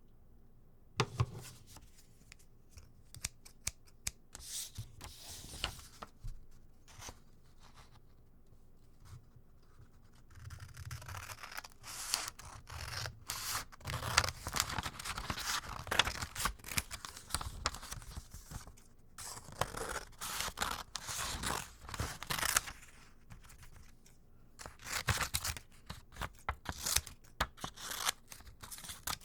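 Scissors cutting, snip after snip in quick runs of cuts with short pauses between them, starting about a second in.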